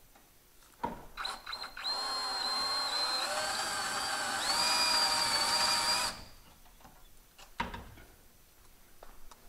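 Power drill with a 3/16-inch bit drilling out a factory rivet in a car's strut tower: a steady motor whine for about five seconds, rising in pitch partway through, then stopping. A sharp knock comes just before the drilling and another a little after it.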